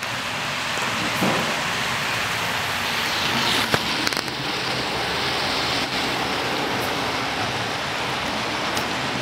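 Steady rushing background noise with a few sharp knocks, about one, four, six and nine seconds in, from the camera being handled and set down beside the track.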